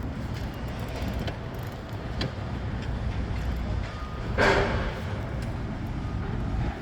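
Steady rumble of road traffic, with a brief loud rushing sound about four and a half seconds in.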